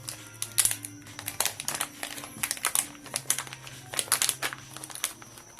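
Plastic packaging crinkling and rustling as it is handled, with irregular sharp clicks as the small mount pieces are taken out.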